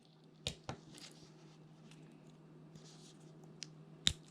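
Small clicks and light scraping from prying apart a tiny part of a cordless phone handset to reach a copper coil: two clicks about half a second in, faint ticks after, and a sharper click just after four seconds. A faint steady low hum runs underneath.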